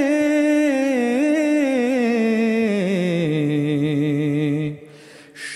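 A man's voice singing an Urdu nazm, drawing out the last word of a line in a long ornamented held note with vibrato. About three seconds in it slides down to a lower note and holds it, then breaks off briefly near the end.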